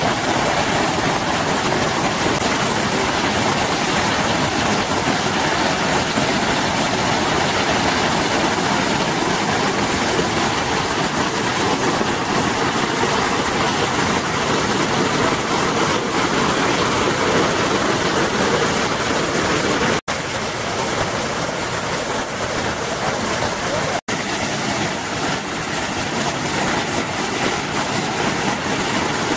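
Waterfall's steady roar of falling and rushing water, unbroken apart from two split-second gaps about two-thirds of the way through.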